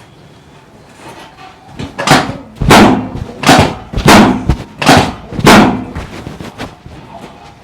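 Six loud, heavy thumps in a steady rhythm, about two-thirds of a second apart: percussive strikes on a patient lying face down during a chiropractic treatment.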